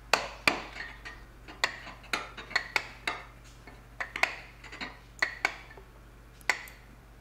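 Caulking mallet striking a caulking iron, driving cotton into the garboard seam of a wooden boat: about a dozen sharp taps at an uneven pace, with a gap of about a second before the last one.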